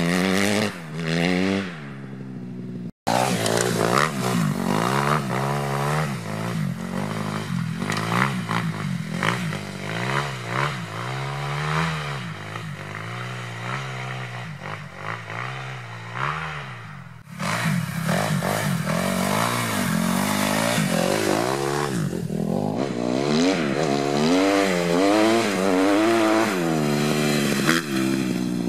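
Kawasaki KX250F's single-cylinder four-stroke engine, breathing through an FMF Megabomb header and RCT 4.1 exhaust, revved hard again and again, its pitch climbing and dropping as the throttle opens and shuts. The sound breaks off abruptly about three seconds in and again about seventeen seconds in, where clips are cut together.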